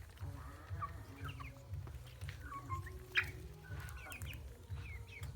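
A flock of free-range chickens calling and clucking, many short falling calls overlapping, with one sharp louder call a little past three seconds in, over a low rumble.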